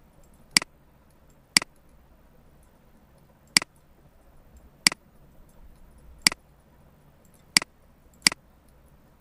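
Computer mouse button clicking seven times, sharp single clicks spaced unevenly about one to one and a half seconds apart, the last two close together, over faint room hiss.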